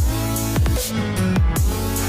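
Background electronic music with a heavy beat and deep falling bass drops, in a dubstep style.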